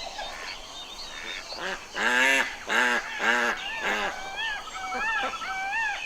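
Waterfowl calling: four loud honking calls about half a second apart, followed by a run of higher-pitched repeated calls with a brief fast trill among them.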